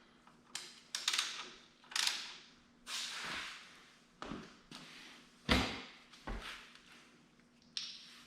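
A series of separate knocks and clinks, about nine over several seconds, from tools and engine parts being handled and set down, two of them with a heavier thump near the middle.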